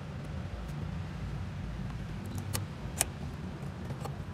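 A few short, sharp plastic clicks, the loudest about three seconds in, as hands fit the fuel line and wiring connectors onto a fuel pump sender unit. A steady low hum runs underneath.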